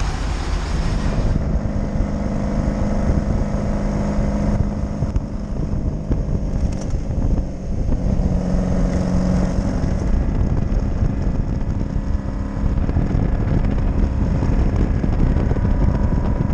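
Motorcycle engine running under way with wind rushing over the microphone; the engine note changes pitch a few times.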